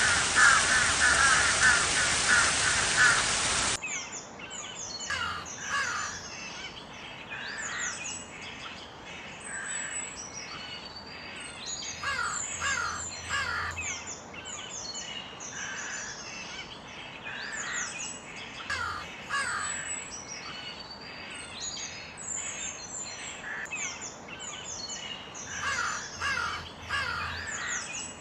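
Crows cawing, first in a louder recording that cuts off abruptly about four seconds in, then in a quieter one where caws recur every couple of seconds among many quick high-pitched chirps from other birds.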